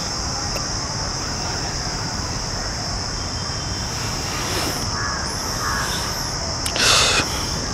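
Steady background noise with a constant high hiss, and a brief harsh burst of sound about seven seconds in.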